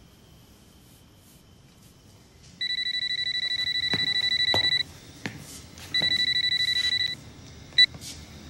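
Mobile phone ringing with a fast electronic trill, in two long rings and then a short blip near the end.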